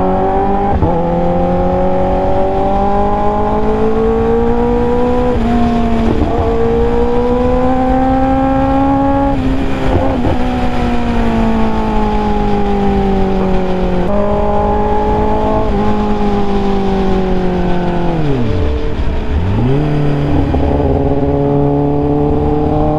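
Kawasaki Ninja ZX-10R inline-four engine under way, its note climbing and falling with throttle and gear changes, over steady wind noise on the microphone. About three quarters of the way through the revs drop sharply and then pick up again, settling to a steady note.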